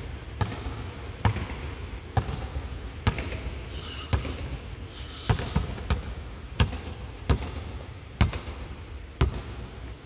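Basketball dribbled on a hardwood court, a sharp bounce about once a second, each one echoing in a large empty arena.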